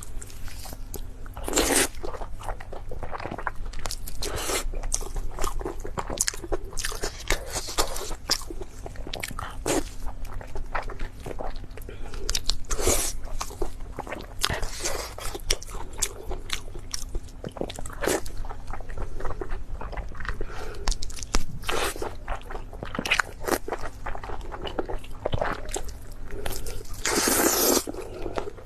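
A person biting and chewing food close to the microphone, with many irregular crunches and mouth clicks and a few longer rushes of noise, the loudest near the end.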